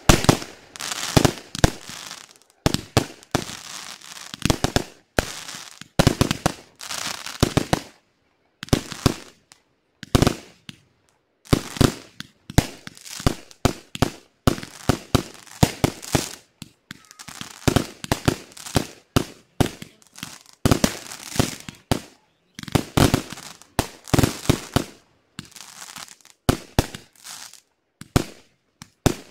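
Aerial fireworks display: volleys of sharp bangs as shells launch and burst, each volley trailing off, with short breaks between volleys.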